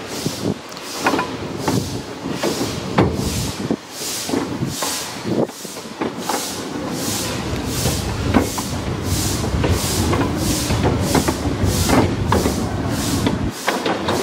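Narrow-gauge steam locomotive running, heard from on board: a steady rhythm of exhaust chuffs, about two a second and quickening slightly. Under it the wheels knock and clatter on the track.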